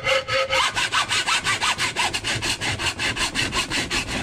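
Hacksaw cutting through 1.5-inch black plastic pipe clamped in a vise, in rapid, even back-and-forth strokes. About half a second in, a steady ringing tone stops and the strokes speed up.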